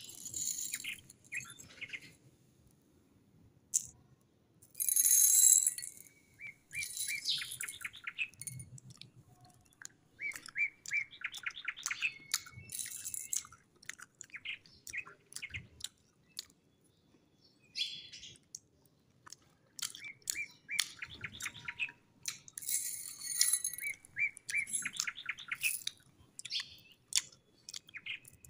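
Small sugar-coated candy balls rattling and clicking against a glass dish and in the hand, loudest in a couple of short pouring bursts. Birds chirp in runs of rapid high notes throughout.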